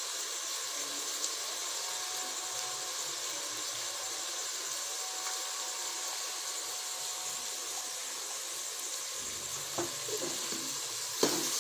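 Onion-tomato curry masala frying in ghee: a steady sizzle, with a single knock near the end.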